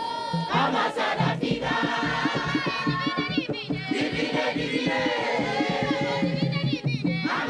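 A group of women and men singing a lively song together, strong women's voices leading, over a fast steady beat; the lyrics announce an arrival and call the men to come and dance.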